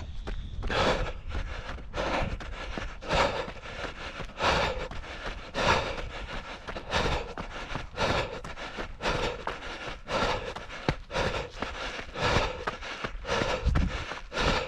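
A runner's heavy breathing close to the microphone, a steady rhythm of about one breath a second.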